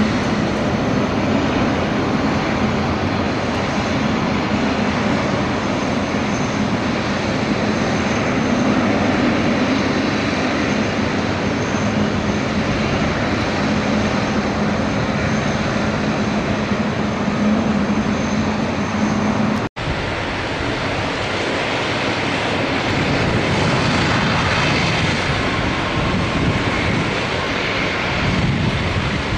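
Boeing 777-300ER's twin GE90 jet engines running at taxi power, a steady jet rumble and whine. The sound drops out for an instant about two-thirds of the way through.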